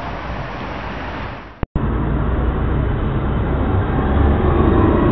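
Steady outdoor background noise, then, after a brief dropout about a second and a half in, louder street noise of a city bus driving past close by, its engine running low and growing louder.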